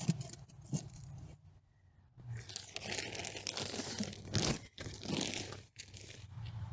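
Light knocks near the start as a pot insert is set into a glazed pot. Then a plastic bag of potting soil crinkles as it is handled, and soil pours from it into the pot.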